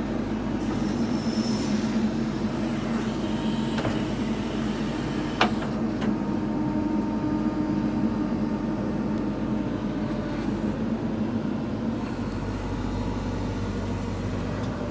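JCB 3DX backhoe loader's diesel engine running steadily as the machine works, with one sharp knock about five and a half seconds in.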